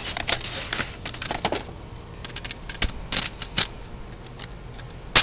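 Handling noise from an airsoft MP5 and its magazine: a series of sharp plastic-and-metal clicks and short rattles, with one loud click near the end.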